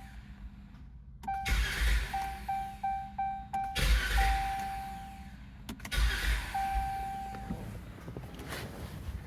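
Chrysler 200 starter cranking only briefly, three times, and the engine failing to start: a short-crank no-start, which the owner puts down to a bad PCM ground. Each attempt dies away within a second or two, and a dashboard chime beeps between them.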